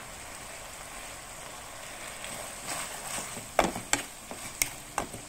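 Sambal, chopped preserved radish and ground dried shrimp sizzling steadily in oil in a wok. About three and a half seconds in, a plastic spatula starts stirring, scraping and clicking sharply against the wok.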